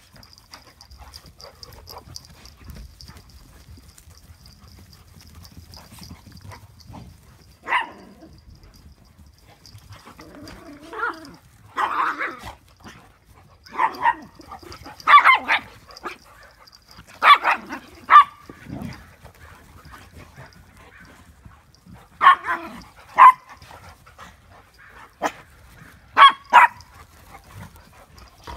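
Dogs at play barking: single sharp barks and short runs of two or three, starting about eight seconds in and coming more often in the second half.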